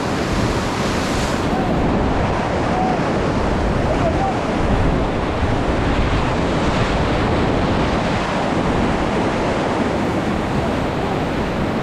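Steady rush of river whitewater around a raft, with wind buffeting the microphone.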